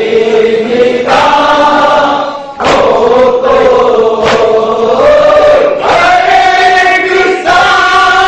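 Group of men chanting a nauha, an Urdu mourning elegy, together in unison, with long held lines. A sharp beat falls in time with the chant about every second and a half.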